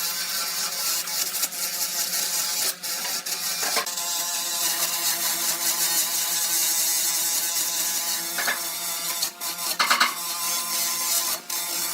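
A power tool running steadily on wood with a dense, hissing mechanical noise, with a few brief clicks and small changes in pitch partway through.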